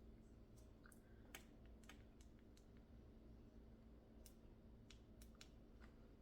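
Near silence: a low room hum with about a dozen faint, irregular clicks.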